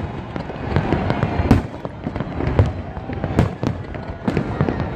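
Fireworks display: bangs in quick, irregular succession over a constant din, the loudest about a second and a half in.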